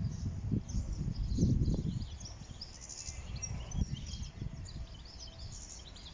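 Wind buffeting the microphone in low gusts, strongest in the first two seconds and then easing, with small birds chirping in short, high, scattered calls throughout.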